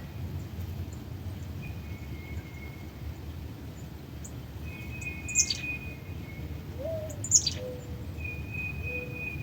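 Wild birds calling: several long, steady whistled notes, and two sharp, high, falling calls about halfway through that are the loudest sounds, over a steady low rumble.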